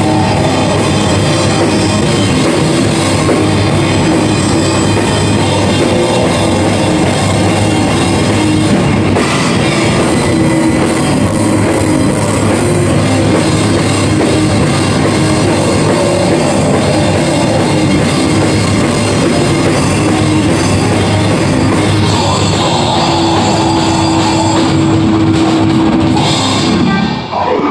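A heavy metal band playing live and loud: pounding drum kit with cymbals under distorted electric guitars. The song stops abruptly about a second before the end.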